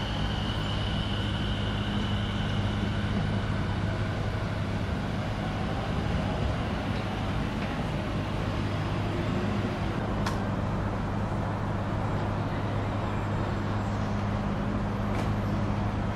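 A steady low hum over a constant rushing background noise, with a thin high tone fading away over the first few seconds and a few faint clicks later on.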